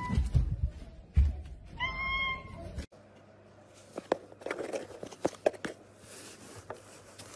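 Domestic cat meowing: one clear meow about two seconds in, after a few low thumps. Fainter small clicks and rustles follow.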